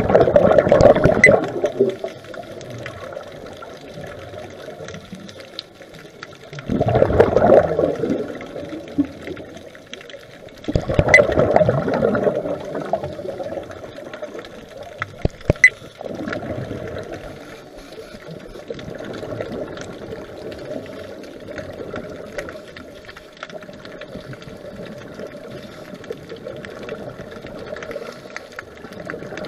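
Scuba regulator exhaust bubbles heard underwater: three loud bursts of bubbling, each about two seconds long, in the first half, then a steadier, quieter wash of water noise.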